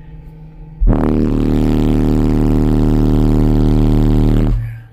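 Car-audio subwoofer system playing a 38 Hz test tone burp in the sealed cab for an SPL reading: a very loud, deep bass tone with a buzzing edge, starting abruptly about a second in and stopping just under four seconds later. The burp reads about 158 dB on the meter.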